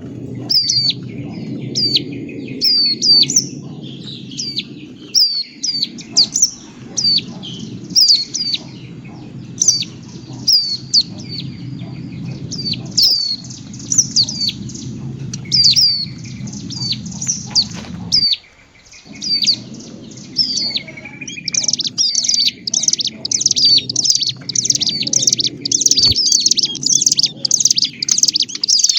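Agitated alarm-type calls of ciblek gunung (a prinia) mixed with prenjak calls: a run of sharp, high chirps, each sweeping quickly downward, several a second, becoming faster and denser about three-quarters of the way through. A steady low hum lies under the calls.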